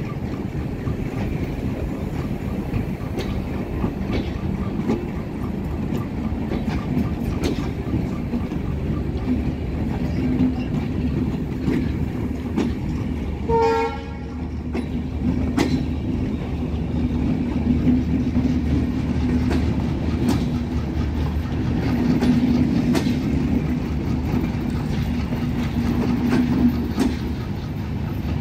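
Benapole Express intercity passenger coaches rolling past at close range: a steady rumble with wheels clicking over the rail joints, and a short horn toot about halfway through.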